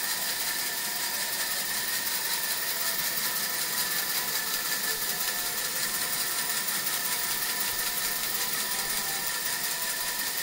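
A 26-inch woodworking bandsaw running idle with a freshly fitted, tracked blade, giving a steady, even mechanical whir with a fine rapid rhythm and a few constant tones.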